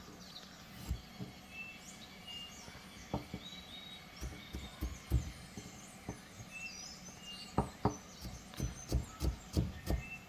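Scattered sharp knocks and taps of kitchen work, such as a knife or utensil against a board or bowl, coming faster, about two to three a second, in the last few seconds. Small birds chirp and whistle in the background.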